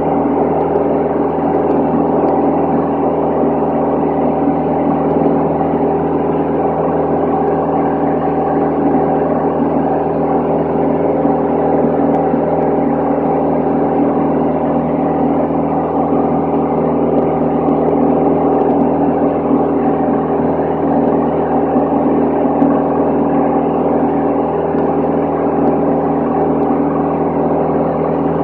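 Van's RV-10 single-engine piston aircraft's engine and propeller droning steadily, heard from inside the cabin, with no change in pitch or level.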